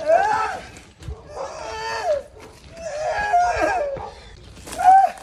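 A man's drawn-out pained wails and groans, four in a row with pitch rising and falling, from the burn of the hot chip he has just eaten.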